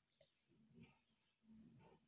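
Near silence, with a couple of very faint soft sounds about a second in and near the end.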